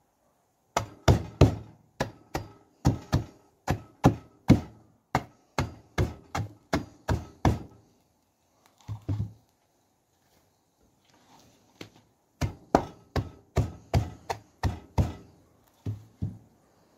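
Repeated dull blows crushing lumps of baked black Thursday salt wrapped in burlap, about two a second, in two runs with a pause of a few seconds between them.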